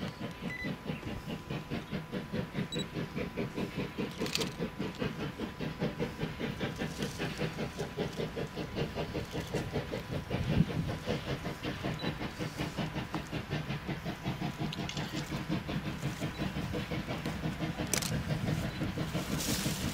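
Two steam locomotives double-heading a train in the distance, their exhaust chuffing in a rapid, even beat of about three a second that grows slowly louder as the train approaches. A couple of sharp clicks sound, one about four seconds in and one near the end.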